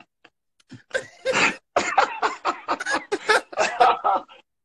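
Men laughing hard over a video call, in rapid breathy bursts that start about a second in, with cough-like gasps mixed in.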